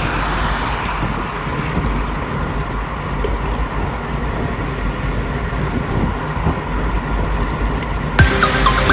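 Strong wind blowing across the microphone, a steady low rumbling rush. Music starts abruptly near the end.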